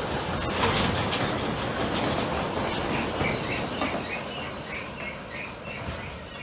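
Freight train of empty double-deck car-transporter wagons rolling past on the rails, fading in the last couple of seconds as the end of the train draws away. Short high chirps repeat several times a second through the second half.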